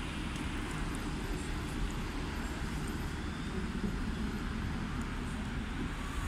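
Electric tram running slowly alongside the platform: a steady low rumble, with street traffic behind it.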